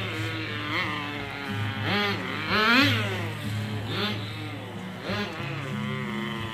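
Small nitro glow engine of a Tamiya TGS radio-controlled car running at a high-pitched buzz, its throttle blipped so the pitch rises and falls about once a second.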